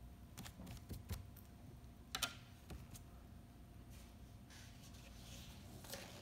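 A few light clicks and taps of small objects handled on a table, the loudest about two seconds in, with a soft rustle near the end.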